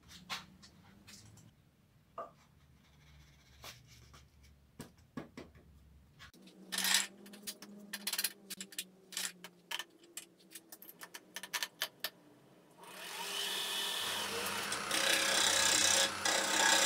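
Clicks and knocks of a wooden bowl being fitted against a lathe's chuck and tailstock centre. About thirteen seconds in, a loud, steady scraping hiss begins as a gouge cuts the spinning itín wood, turning away the tenon at the bowl's foot.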